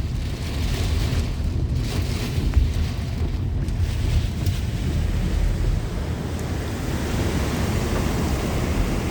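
Strong thunderstorm straight-line winds buffeting the car, a steady rush of wind noise with a deep low rumble.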